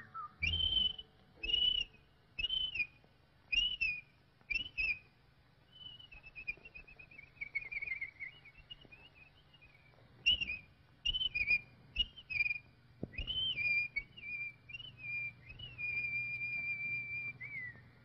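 Whistled bird calls from an old cartoon soundtrack: about five short chirping whistle notes roughly a second apart, then a wavering, falling run of notes, more short chirps, and a long held whistle that drops in pitch near the end. A faint low hum runs underneath.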